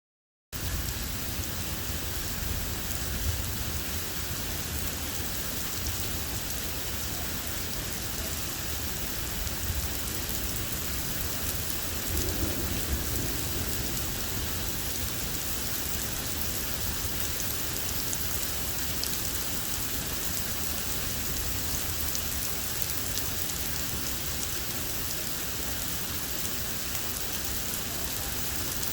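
Heavy rain pouring steadily during a severe thunderstorm, with a low steady rumble underneath. It starts abruptly about half a second in.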